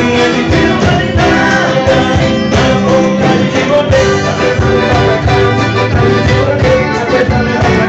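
A band playing loud, dense music with a regular drum beat and held instrument notes.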